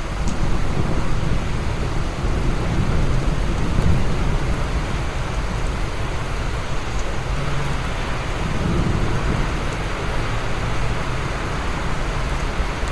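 Steady heavy rain with low rolling thunder, the rumble swelling during the first few seconds and again about eight seconds in.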